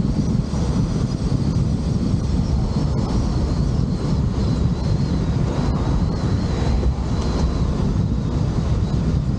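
Steady wind rush and low rumble on a camera travelling on a moving vehicle, the wind buffeting the microphone, with a faint high whine above it.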